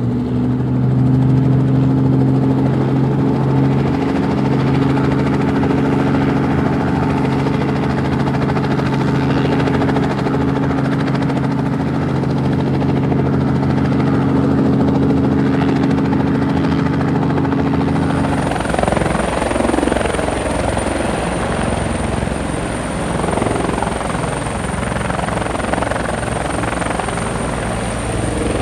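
Helicopter running: a steady engine drone for the first two-thirds, then, about eighteen seconds in, the sound changes to a fast, even rotor-blade chop with a high steady whine over it.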